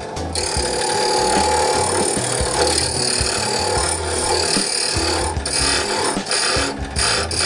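A power tool running with a steady high whine, starting a moment in.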